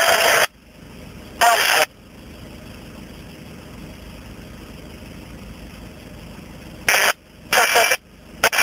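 Uniden UBC3500XLT scanner on 143.625 MHz FM receiving a weak, broken ISS downlink: short bursts of scratchy static as the signal breaks through, about a second and a half in and twice near the end, with a steady low hiss between them.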